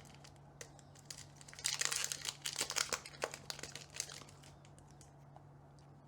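Foil booster-pack wrapper crinkling and trading cards being handled: a burst of crisp crackles lasting about a second and a half near the middle, with scattered light clicks around it, over a faint steady hum.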